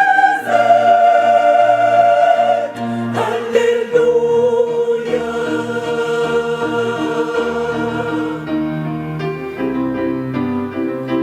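A gospel choir singing in parts, holding long chords for several seconds at a time, moving to shorter, quicker notes near the end.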